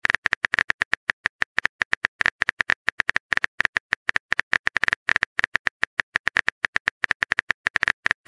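Phone keyboard typing sounds: a rapid, uneven stream of short clicks, one per letter, as a text message is typed out.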